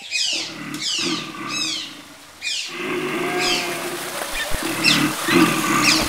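Animal calls: high chirps falling steeply in pitch, repeating every half second or so, over a lower, noisier animal cry.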